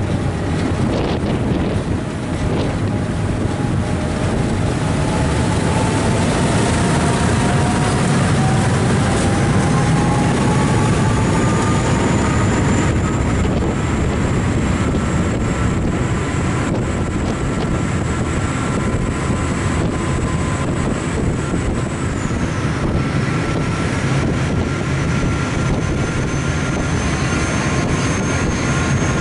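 Engines of the Uber Boat 'Meteor Clipper' passenger catamaran running loud and steady as the boat pulls away and gathers speed. A whine rises in pitch over the first dozen seconds and then holds level. Wind buffets the microphone.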